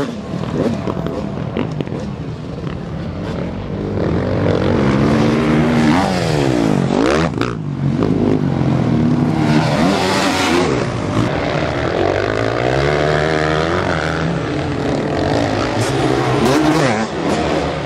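Several motocross bikes racing, their engines revving up and down as they accelerate, shift and pass, the pitch of the overlapping engines rising and falling.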